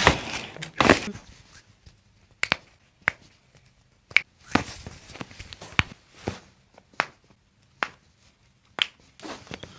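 Hands handling a patient on a chiropractic table close to the microphone: about a dozen sharp clicks and short rustles at irregular intervals, the loudest about a second in.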